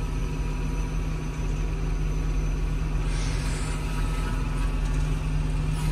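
John Deere tractor engine running steadily, heard from inside the cab as the tractor drives through deep floodwater, with a brief hiss about three seconds in.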